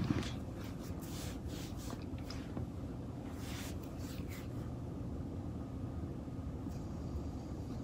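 Faint room tone: a steady low hum, with a few soft rustles and taps in the first half.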